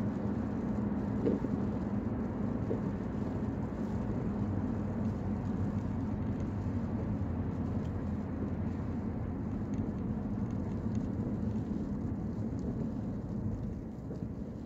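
Steady road and engine rumble of a car at highway speed, heard inside the cabin, easing off slightly near the end.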